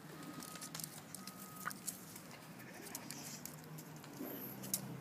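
Dog claws clicking and pattering irregularly on paving stones as an adult dog and her puppy move about, with a few sharper ticks among them.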